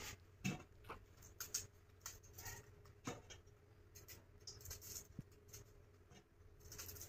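Faint small snaps and rustles as fresh green chillies are broken apart by hand and dropped into an aluminium wok, over a low steady hum.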